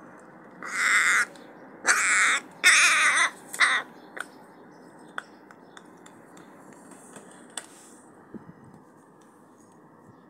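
Young hooded crow cawing loudly, three long harsh caws and a short fourth in quick succession, followed by a few faint clicks.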